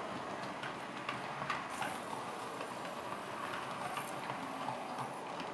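Model railway freight wagons rolling along layout track: a steady rolling noise with light, irregular clicks as the wheels run over the rails and joints.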